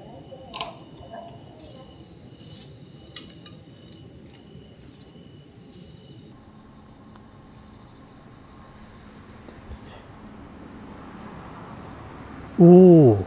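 Crickets singing a steady, high-pitched trill, which drops in level about six seconds in, with a few light clicks in the first seconds. A man's voice cuts in loudly and briefly near the end.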